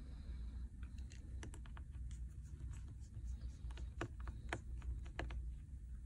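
Irregular light clicks and taps of a precision screwdriver and small parts on a smartphone's frame during disassembly, over a steady low hum.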